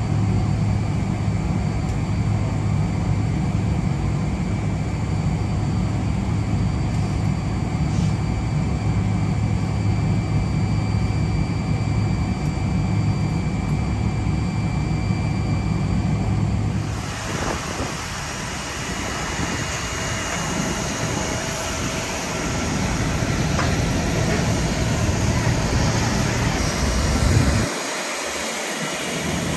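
Boeing 777 airliner noise: a steady low hum under a rush of air, which changes abruptly about 17 seconds in to a brighter, hissier rush with less hum, and shifts abruptly again near the end.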